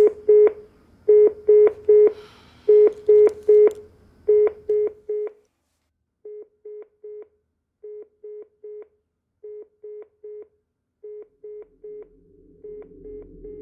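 Telephone line tone after a call ends: short beeps in groups of three, repeating about every second and a half. About five seconds in it suddenly drops much quieter and keeps going. Near the end a low droning music bed fades in.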